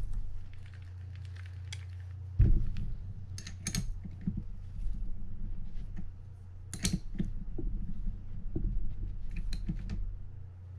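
Metal reel wrench clicking and knocking against the handle nut of a fishing reel as the nut is tightened: irregular small metal clicks, with a louder knock about two and a half seconds in. A steady low hum runs underneath.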